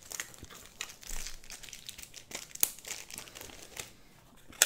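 Thin plastic crinkling with irregular sharp clicks as trading cards are handled in their plastic sleeves and wrappers.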